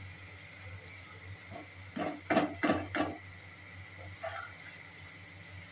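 Steel spatula stirring paneer cubes into simmering masala gravy in a steel pan, with a few sharp clinks and scrapes against the pan about two to three seconds in, over a steady sizzle.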